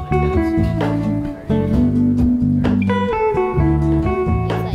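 Background music: a guitar-led song, plucked and strummed guitar over steady low bass notes.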